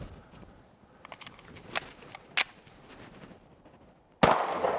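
A single pistol shot about four seconds in, loud and sharp with a short echo trailing after it, preceded by a couple of faint clicks.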